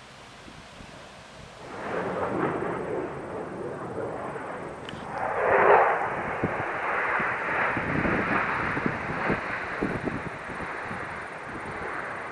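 F-16 fighter jets flying past: jet noise comes in about two seconds in, swells to its loudest near six seconds, then holds steady.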